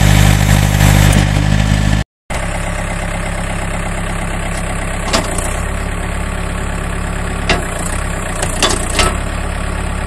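2005 John Deere 110 tractor loader backhoe's diesel engine running steadily. After a break about two seconds in it runs on slightly quieter, with a few short clicks in the second half.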